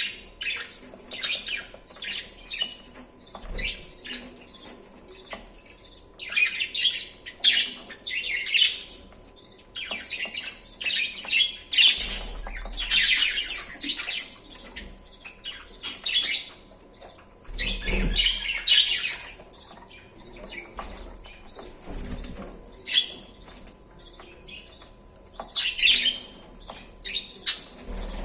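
Budgies chirping and chattering in quick runs of short high calls, with now and then a soft low thump.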